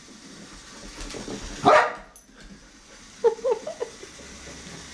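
Dog barking at a moving robot toy mouse: one loud bark nearly two seconds in, then a quick run of short, softer yips about a second and a half later.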